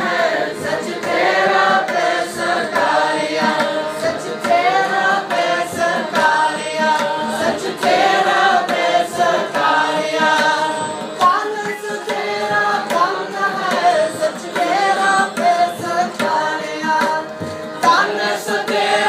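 Sikh kirtan: a group of men and women singing a shabad together in unison, accompanied by a harmonium.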